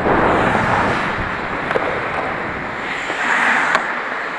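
Ice hockey skates gliding and scraping on the ice, with wind rushing over a player-worn camera's microphone. There are a couple of sharp clicks, about two seconds apart.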